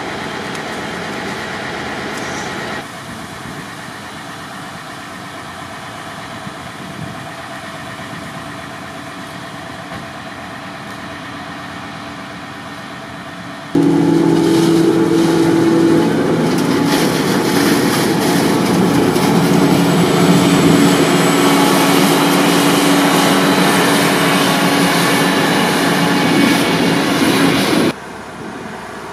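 Farm machinery running steadily during maize chopping. About halfway through it turns abruptly much louder, with a steady droning hum as the forage harvester blows chopped maize into a Claas Cargos silage wagon. It drops back near the end.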